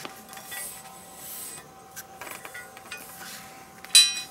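Washers being handled and slipped onto the ends of a car's front sway bar: soft rubbing and small clicks, then a sharp clink that rings, about four seconds in.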